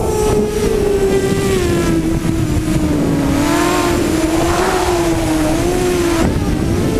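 Six 2000kv brushless motors (Cobra CM2208-20) spinning 6-inch HQProp 6045 propellers on a hexacopter in flight, heard from the onboard camera. They make a steady whine whose pitch wavers with the throttle, dipping about three seconds in and then rising again.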